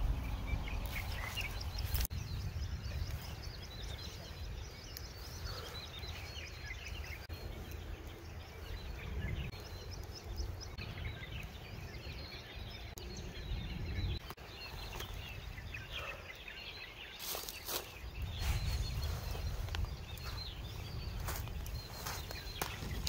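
Outdoor ambience: a steady low wind rumble on the microphone, with faint bird chirps scattered through it. A few brief rustles come near the end.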